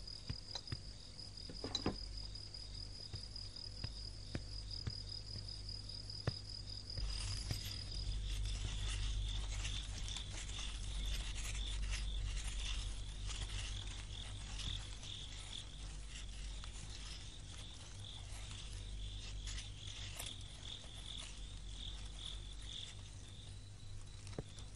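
Crickets chirping steadily: a thin high trill at first, giving way about eight seconds in to a lower, pulsing chirp, over a low background hum.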